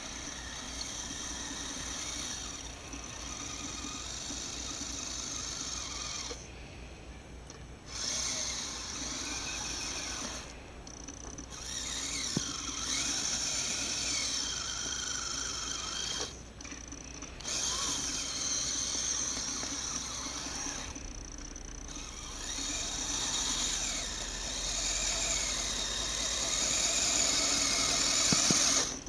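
Blizzard SR's small motor running as it drives through deep snow, a high, steady whine that stops four times for about a second and starts again. It gets louder near the end.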